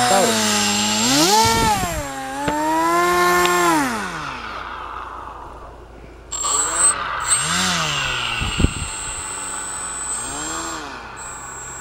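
Small electric RC-airplane motor and air propeller driving a model boat, whining with its pitch rising and falling several times as the throttle is opened and eased off. There are two brief thumps, about one and a half and eight and a half seconds in.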